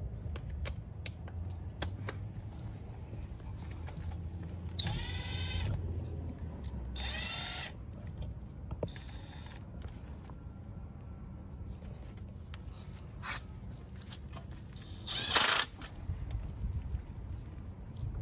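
Cordless power driver with a socket on an extension spinning oil pan bolts in: three short whirs about two seconds apart, then a louder, harsher burst about three-quarters of the way through.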